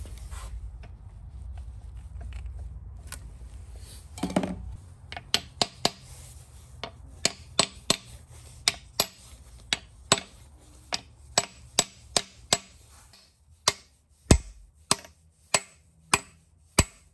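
A heavy hammer drives a helical crankshaft gear onto its keyed crankshaft nose. After a thud about four seconds in come sharp metal taps, roughly two a second. The loudest blow lands near the end.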